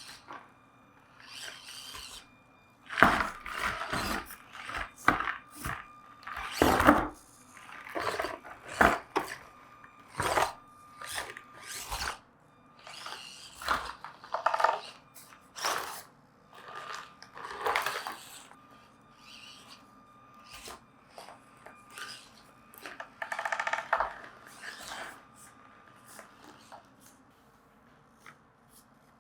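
Axial SCX24 micro RC crawler's stock electric motor and drivetrain whirring in short, stop-start bursts as it is driven.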